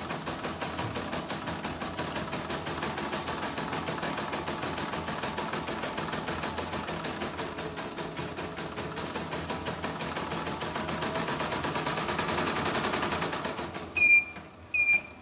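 Portable computerized embroidery machine, with its covers off, stitching at a steady rapid rhythm of needle and hook clatter. It stops about fourteen seconds in with two short electronic beeps.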